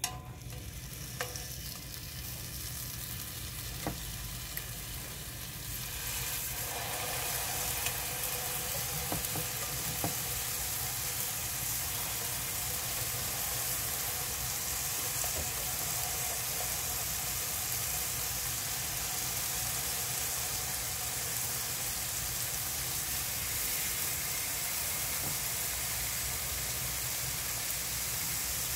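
Raw chicken breast pieces sizzling on a hot nonstick stovetop griddle as they are laid down with tongs, with a few light clicks in the first seconds. The sizzle grows louder over the first six seconds or so as more pieces go on, then holds steady.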